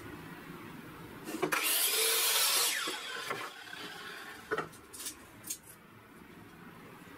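Compact miter saw cutting through a wooden board for about a second and a half, then the blade winding down. A few sharp knocks follow as the cut piece is handled.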